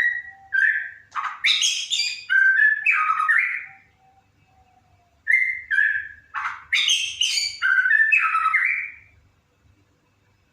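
White-rumped shama (murai batu) singing: two phrases of about four seconds each, a second or so apart, mixing clear whistled notes with harsh rasping ones.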